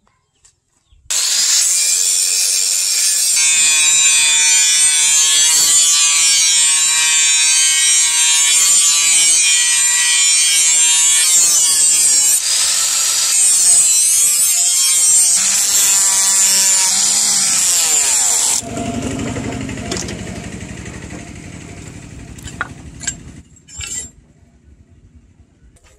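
Handheld angle grinder with a cut-off disc cutting into the steel of an old knife blade: a loud, high grinding with a wavering ring from the blade. About 18 seconds in the trigger is released and the disc winds down, fading over several seconds.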